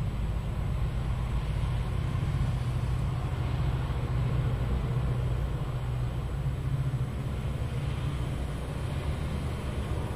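C class diesel-electric locomotives hauling a coal train, their diesel engines running with a steady low throbbing drone as the train approaches.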